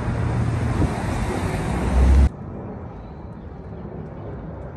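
Street traffic noise with a vehicle engine running close by, a steady low hum under a loud even hiss. About two seconds in it cuts off abruptly to a much quieter outdoor background.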